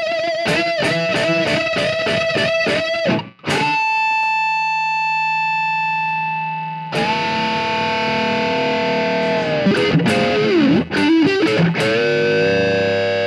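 Schecter Telecaster-style electric guitar played through a tube amp with light distortion. First come fast repeated picked notes over one held note, then a brief break, long ringing chords, a bent note about ten seconds in, and a held chord near the end.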